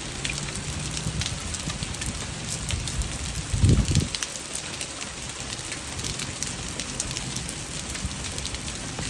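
Quarter-sized hail and rain pelting down: a steady hiss with many sharp ticks of hailstones striking. A brief low thump about three and a half seconds in.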